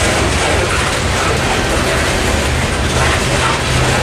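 Freight train of coal hopper cars rolling steadily past: a continuous rumble and rattle of steel wheels on the rails.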